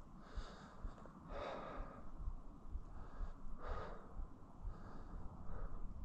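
A person breathing heavily: about five breaths at uneven spacing, each a short breathy rush.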